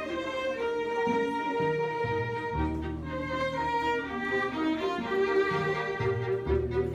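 Chamber string ensemble playing: violins holding long notes over low cello and bass notes that change every second or two.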